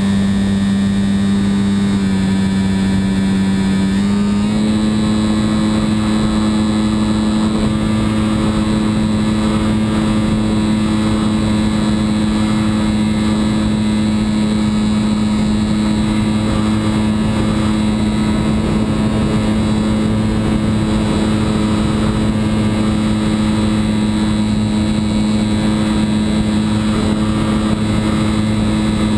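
Radio-controlled model airplane's motor and propeller running steadily in flight, heard from a camera on the airframe right beside the propeller. The hum dips slightly in pitch about two seconds in, rises a little about four and a half seconds in, then holds steady.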